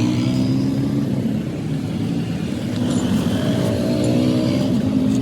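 Engine running steadily under a low rumble, its pitch rising slightly now and then.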